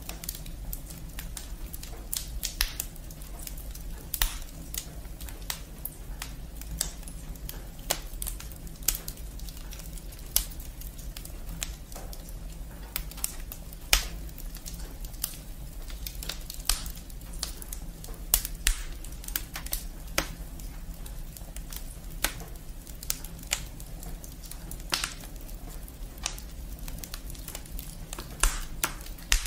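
Wood fire burning, the logs and twigs crackling with irregular sharp pops over a low steady rumble.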